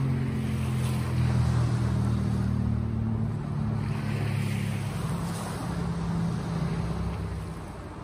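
Sea waves washing ashore in swells, with a low steady engine hum under them that weakens through the second half.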